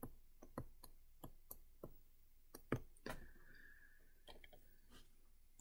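Faint, irregular taps and clicks of a stylus on a tablet screen during handwriting, roughly two a second, with a faint thin whine for about two seconds near the middle.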